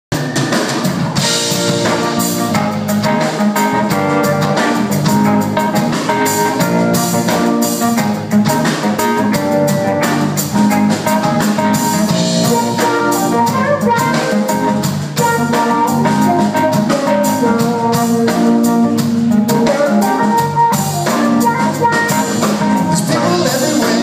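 Live band playing an instrumental passage on drum kit, bass guitar, acoustic-electric guitar and keyboard, with a steady beat.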